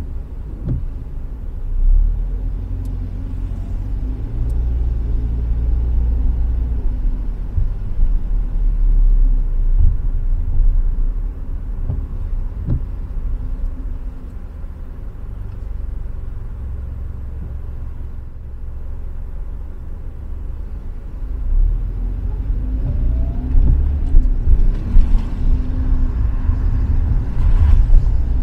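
Car driving on a wet road: a steady low rumble of engine and road noise. It quietens for several seconds midway, then builds again.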